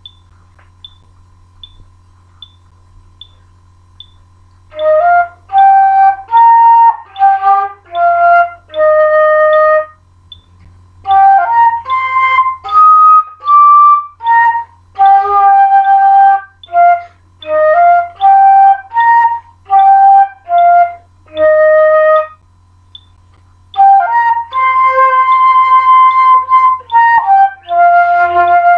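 Concert flute played solo: a melody in phrases, starting about five seconds in, with breaks about ten and twenty-three seconds in. Before it starts, faint ticks come a little over once a second, and a low steady hum lies under it all.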